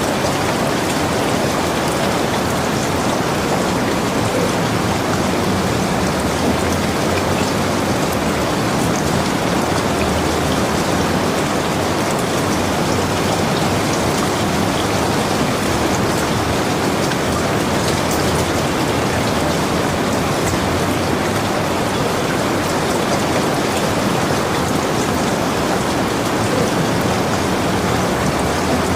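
Steady heavy rainfall, a dense, even patter of drops with no distinct thunderclap.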